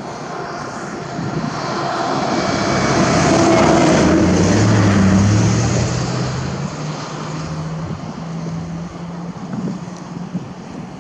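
Low-flying aircraft passing overhead: its engine noise swells to a peak about four seconds in, then drops in pitch and fades as it flies away.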